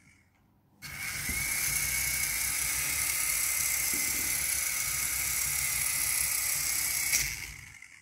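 Small battery-powered remote-control toy helicopter starting up about a second in, its electric motor and rotors giving a steady high whine and whirr that dies away near the end.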